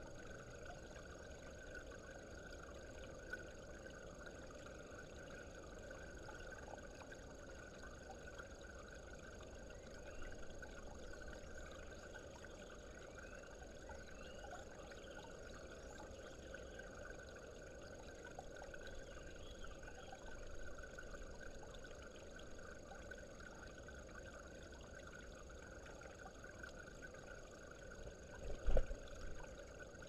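Faint steady trickle of water in a small garden pond, with a single loud thump near the end.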